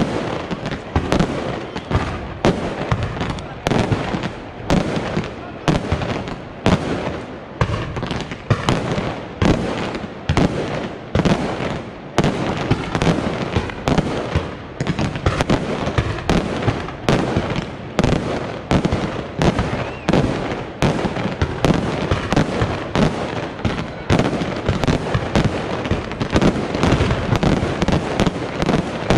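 Mascletà firecrackers and aerial crackers going off in a continuous barrage of sharp bangs, several a second, without let-up.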